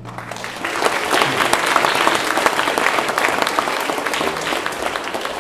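Audience applauding as the march ends, with the band's final low chord dying away under the first claps. The clapping swells about a second in and then slowly tapers off.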